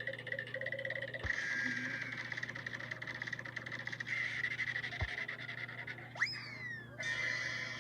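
A run of cartoon sound effects spliced one after another: a dense buzzing, rattling texture broken by low thumps about one and five seconds in, and a quick sweep up in pitch and back down about six seconds in.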